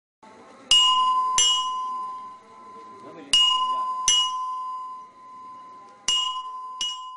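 Opening of a song: three pairs of struck, bell-like chime tones, all at the same high pitch. The two strikes of each pair come under a second apart, and each tone rings on and fades slowly.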